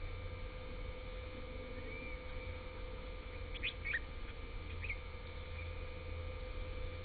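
A few short, high bird chirps: a soft one about two seconds in, a quick cluster of three or four just before the four-second mark, and one more near five seconds, over a steady low hum.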